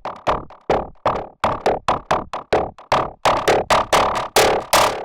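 Roland AIRA synthesizer playing a fast repeating sequence of short plucked notes, about four a second, each dying away quickly. The notes grow brighter and longer toward the end.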